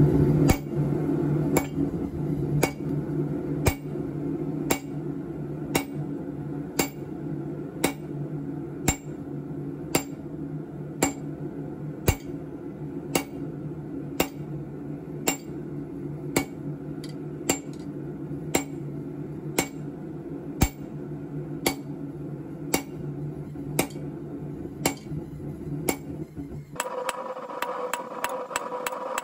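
Hand hammer striking red-hot rebar on a steel anvil, sharp metallic blows about once a second over a steady hum from the lit propane forge. Near the end the hum stops and the hammering comes faster, several blows a second, with a ringing tone.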